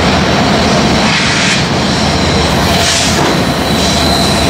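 Lead diesel locomotives of a BNSF intermodal train approaching, engines running with a steady low rumble. A thin high whine comes up near the end.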